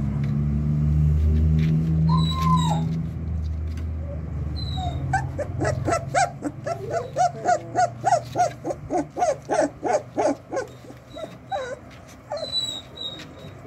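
Doberman puppies, about 24 days old, whimpering and yipping: a single falling whine about two seconds in, then a quick run of short high yelps, several a second, from about five to ten seconds in, with a few more near the end. A low steady hum sits under the first half.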